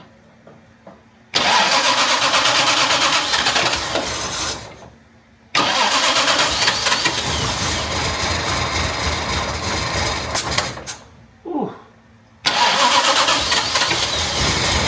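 Jaguar MKII's XK straight-six engine being cranked on the starter in three attempts, the middle one the longest, without settling into an idle. The engine isn't yet running right, and the owner suspects the ignition timing is off.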